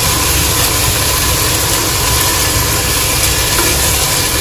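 Onion, herb and ginger-garlic masala with curd sizzling in a nonstick pot as it is stirred with a wooden spatula, over a steady low rumble.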